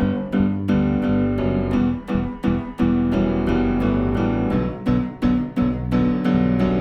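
Instrumental music: electric piano chords over a steady bass pulse, with a little guitar, in an even rhythm and no singing.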